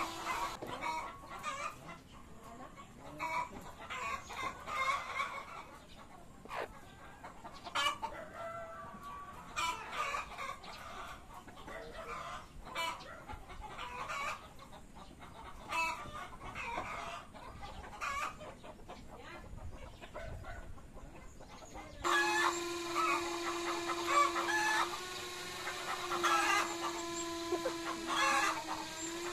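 A flock of brown laying hens clucking in short, scattered calls. About three-quarters of the way through, a steady droning tone comes in underneath the clucking.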